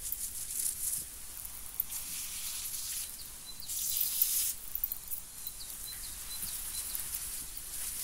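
Water hissing from a garden hose spray nozzle onto strawberry plants and soil in a raised bed, the hiss swelling and fading as the spray is swept. A few faint bird chirps in the background.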